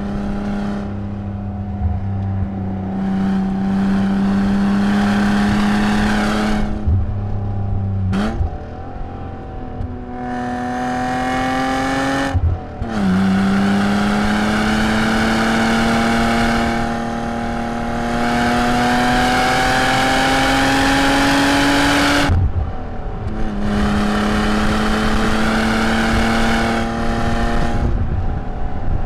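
BMW E36 325is's 2.5-litre straight-six heard from inside the cabin at full track pace. It holds steady revs, then drops sharply about eight seconds in and again about twelve seconds in, climbs in one long rising pull to high revs, drops again about twenty-two seconds in and settles to a steady note, over tyre and wind noise.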